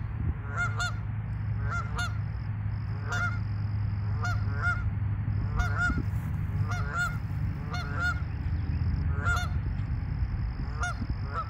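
Geese honking at a pond, repeated short calls about once a second, often in quick pairs, over a steady low rumble.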